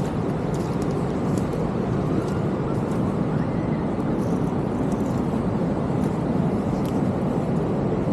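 Ocean surf breaking on the beach, a steady low wash of wave noise.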